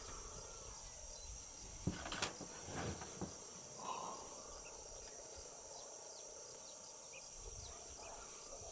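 Steady, high-pitched chorus of insects droning, with a few faint knocks and rustles about two seconds in.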